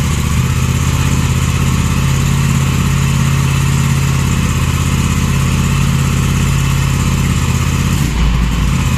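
Aprilia RS457's 457 cc parallel-twin idling steadily through its stock exhaust, the factory exhaust note before a full-system exhaust is fitted.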